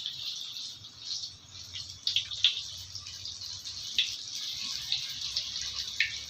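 Water running with drips and splashes, as at a sink: a steady hiss broken by a few sharp splashes about two, four and six seconds in.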